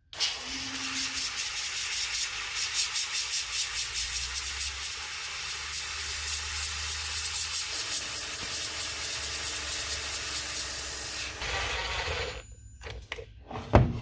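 A small stiff brush scrubbing leftover modelling clay off a 3D-printed lure master in rapid, continuous strokes. It stops about twelve seconds in, followed by a few light knocks.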